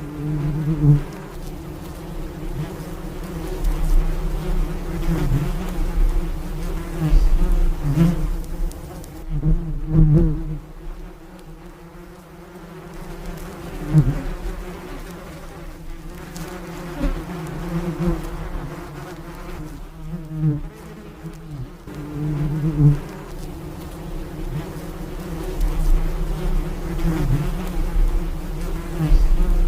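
Several bees buzzing close by, a continuous drone whose pitch wavers and whose loudness swells and fades every second or two as individual bees pass near and away.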